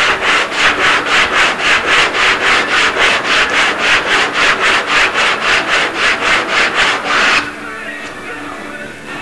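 Hand sanding: fast, even back-and-forth rubbing strokes, about three or four a second, that stop about seven seconds in.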